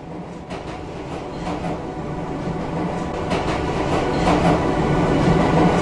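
Diesel locomotive approaching on rails, growing steadily louder: a steady engine drone over a running rumble, with occasional clicks from the wheels.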